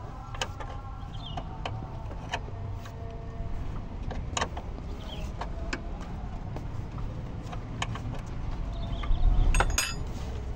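Metal hand tools clinking and knocking against truck metal as a horn is fitted, with scattered single clicks over a steady low rumble. A louder clatter comes near the end.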